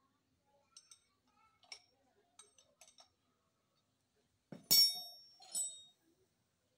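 Faint light clicks of metal engine parts being handled, then two ringing metallic clanks a little over halfway through, the first the louder.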